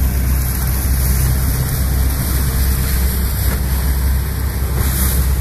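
Motorboat under way: a steady rush of engine and water along the hull, with wind blowing on the microphone.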